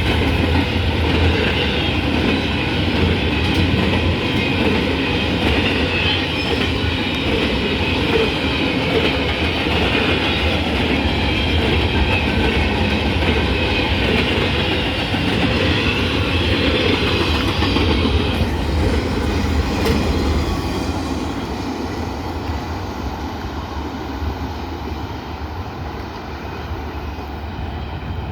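Train running along the track, its wheels clattering over the rail joints, the sound easing off about two-thirds of the way through and fading as it moves away.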